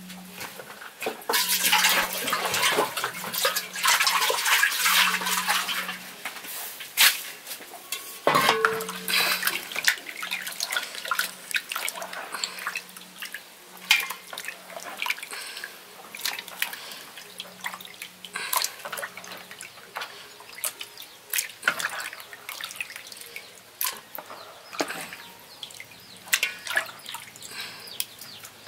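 Hands sloshing and splashing in a basin of water as raw liver pieces are washed, with dripping and many small wet knocks as the washed pieces go into a metal saucepan. The splashing is heaviest in the first few seconds.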